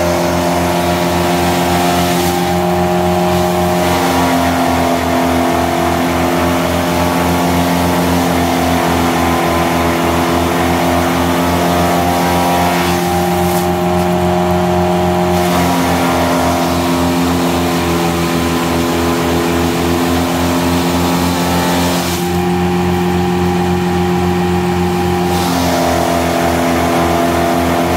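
Tractor engine running steadily at working speed, driving a PTO forage chopper as grass is fed in and chopped. The engine's note shifts several times.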